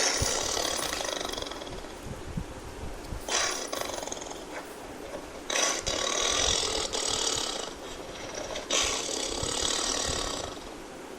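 Tiger roaring: four long, raspy roars in a row, each lasting one to three seconds.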